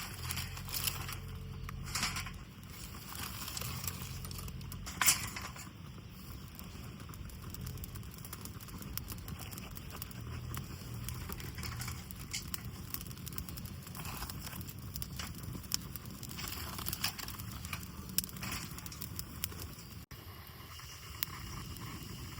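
Wood campfire crackling, with many small snaps and a few sharper pops, the loudest about five seconds in.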